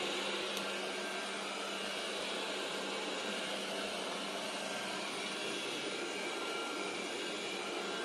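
Roborock S7 MaxV Ultra robot vacuum running as it drives along: a steady suction whir with a constant low hum underneath.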